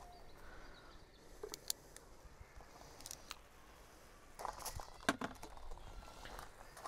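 Metal garlic press worked by hand over a pan: scattered small clicks, then a cluster of clicks and knocks about four and a half to five seconds in, the sharpest about five seconds in.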